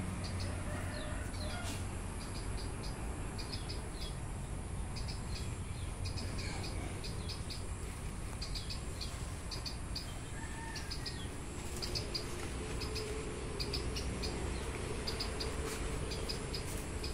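Short, high chirps from a small animal, repeating in quick clusters of two to four throughout, over a steady background hiss.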